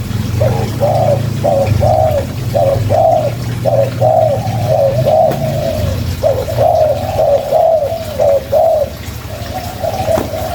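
Spotted dove (tekukur) cooing in a long run of short, arched coo notes, a couple per second, with brief breaks about six and nine seconds in. A steady low hum sits beneath.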